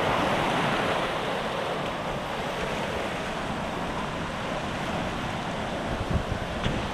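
Ocean surf breaking and washing over rocks, a steady rush of water, with wind noise on the microphone and a few low bumps near the end.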